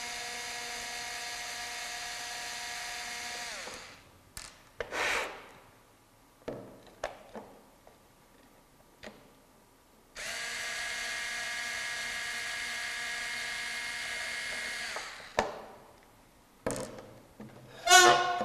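Small cordless electric screwdriver running in two steady runs of a few seconds each, driving out the end-cap screws of an aluminium strobe power-supply case; its whine sags in pitch as it stops each time. A few light clicks fall between the runs, and a short loud sound comes near the end.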